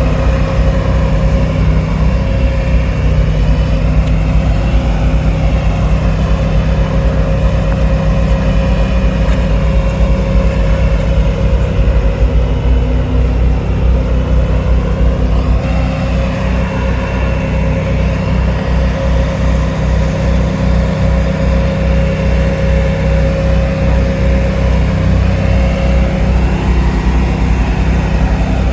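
Engine of heavy construction machinery running steadily, with a constant low throb and a steady hum, shifting slightly about halfway through.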